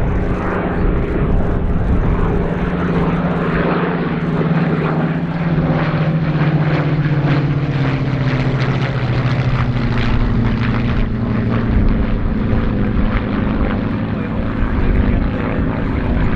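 A Supermarine Spitfire and a Hawker Hurricane flying past together, their piston engines and propellers giving a loud, steady drone. The engine note falls slowly in pitch as the pair passes over.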